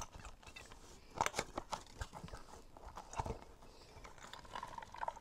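Hands squeezing and stretching a soft spiky rubber puffer ball: irregular handling noises and sharp clicks, the loudest a little over a second in and about three seconds in.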